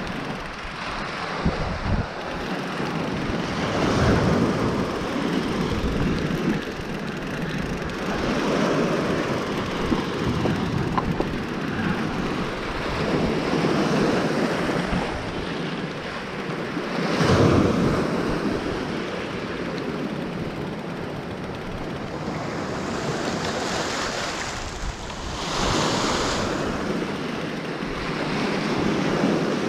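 Sea waves washing in on the shore, surging and fading every few seconds, with wind buffeting the microphone.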